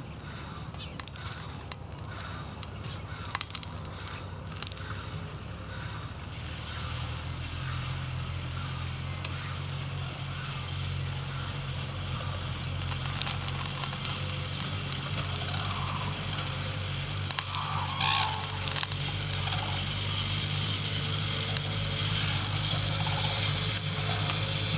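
Engine of a feeding vehicle running, a steady low hum that comes in about six seconds in and grows louder, over scattered clicks and crackles earlier on.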